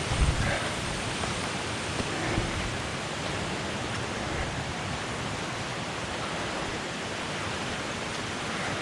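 Steady rushing of a waterfall where two small jungle rivers meet. A few soft low thumps come in the first few seconds.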